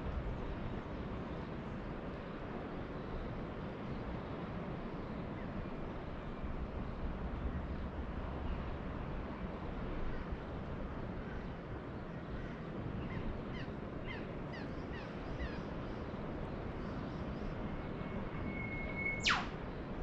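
A steady low rumble of distant ocean surf, with faint short chirps of small birds partway through. Near the end an eastern whipbird calls: a long held whistle ending in a sharp, whip-crack downward sweep, the loudest sound.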